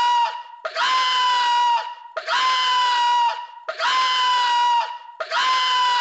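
Cartoon sound effect: one high-pitched, slightly falling cry, about a second long, repeated identically over and over about every one and a half seconds.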